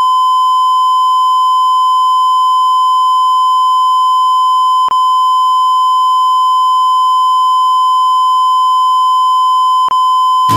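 A steady, loud, high electronic beep tone held without a break, like a test tone, with two tiny clicks about five seconds apart.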